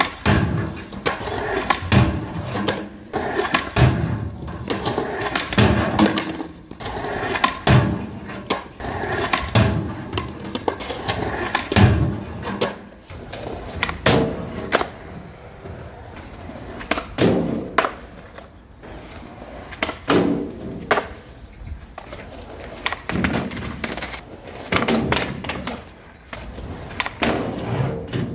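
Skateboard wheels rolling on concrete, broken every couple of seconds by sharp clacks as the tail pops, the board strikes and slides along the edge of a box, and the wheels slap down on landing, attempt after attempt.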